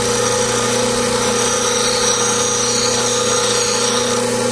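Bench grinder running at speed with a steady hum, a Hannes woodturning gouge held lightly against the wheel and grinding with a hiss.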